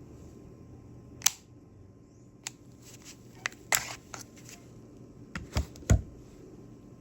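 Handling of a Rossi M92 lever-action airsoft rifle: a string of irregular sharp mechanical clicks and clacks, the loudest two near the end with a dull knock.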